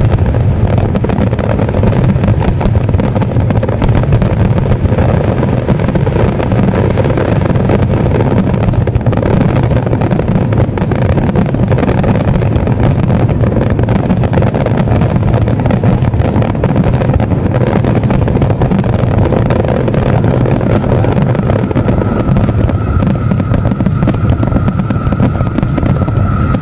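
Fireworks display: a dense, continuous barrage of aerial shells bursting and crackling, running together into a steady loud rumble.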